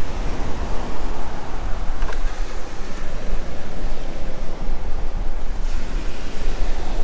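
Steady wind noise on the microphone over surf breaking on the beach.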